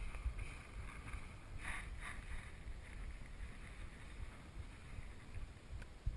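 Wind buffeting the camera's microphone: an uneven low rumble that comes and goes in gusts, with a brief hiss about two seconds in.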